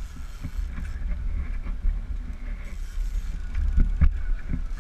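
Steady low rumble aboard a fishing boat at sea, with a few short knocks about four seconds in.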